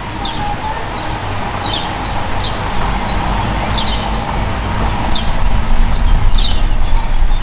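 Low rumbling noise on the microphone that grows louder, with a small bird chirping repeatedly, about once a second, above it.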